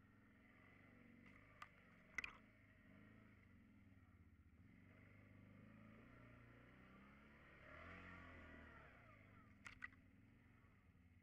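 Faint ATV engine pulling at low speed up a rocky trail, its pitch wavering and rising about three-quarters of the way through as the throttle is opened. A few sharp knocks come in, one about two seconds in and a pair near the end.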